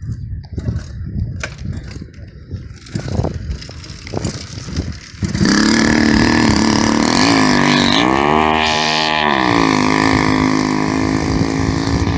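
Motorized bicycle's 80cc two-stroke kit engine starting. For about five seconds it sputters with irregular pops, then catches about five seconds in and runs. It revs up once and back down, then settles to a steady run.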